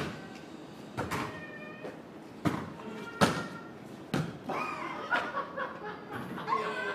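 A basketball bouncing and striking on a court, five separate hits at uneven gaps. From about two-thirds of the way in, a voice calls out with a rising and falling pitch.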